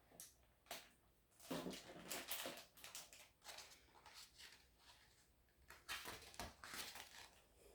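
Faint paper rustling and soft handling clicks of a hardcover picture book's page being turned, in otherwise near silence.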